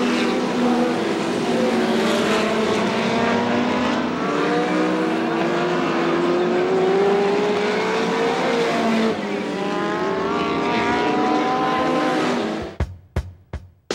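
Several winged midget race cars running flat out on an oval, their engine notes overlapping and rising and falling in pitch as they pass. Near the end the engine sound stops and sharp drum beats of music begin.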